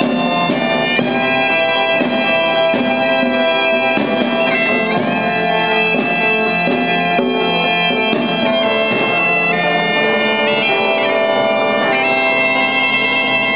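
Several bagpipes playing a tune together over their steady drone, with a drum beating along.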